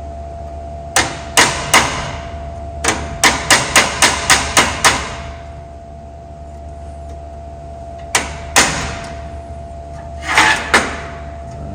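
Hammer tapping on the steel window-crank hardware of a 1937 Nash door, working a nut free from its retaining tabs. The sharp, ringing metal strikes come in groups: three blows, then a quick run of eight at about four a second, then a few more spaced out near the end.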